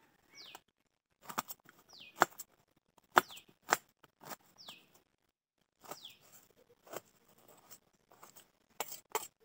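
Knife tapping and cutting through onions against a stainless steel plate: irregular sharp clicks and knocks, a few each second. About five times, a short high chirp falls quickly in pitch.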